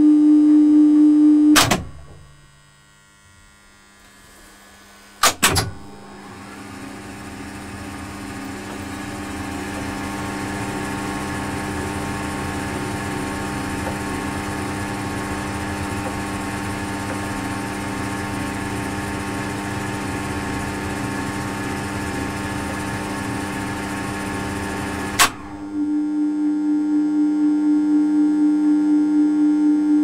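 1942 Siemens elevator machinery and controls. A loud electrical hum cuts off with a clack of switching contacts about two seconds in. Contacts clack again a few seconds later, then the machinery runs up and holds steady for about twenty seconds before stopping with another clack, after which the hum returns until the end.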